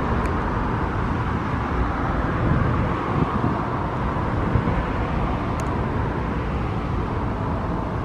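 Steady outdoor noise of road traffic with wind rumbling on the microphone; no distinct train sound stands out.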